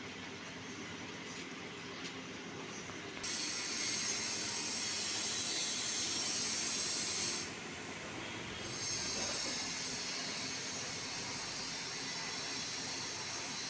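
Steam hissing from a steam boiler setup. A louder high hiss cuts in suddenly about three seconds in, drops away for about a second halfway through, then comes back over a steady lower rush.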